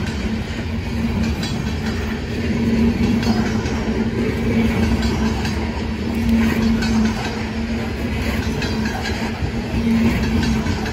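Freight train of open-top hopper cars rolling past. The wheels rumble steadily on the rails over a steady low hum, with scattered clicking as the wheels cross rail joints.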